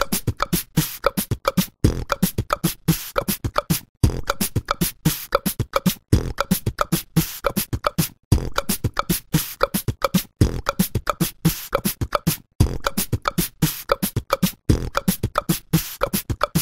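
Background music: a fast, beatbox-like percussive beat of many short strikes, repeating as a loop about every two seconds.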